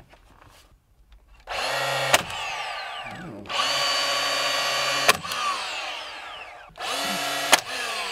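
Cordless battery-powered nailer fastening trim three times: each time its motor whines up for about a second, fires with a sharp crack, then winds down in falling pitch.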